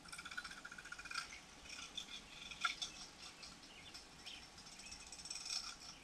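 Jackhammer chatterbait (bladed jig) being reeled through the water, heard underwater: its metal blade gives a faint, thin buzzing rattle, clearest in the first second or so.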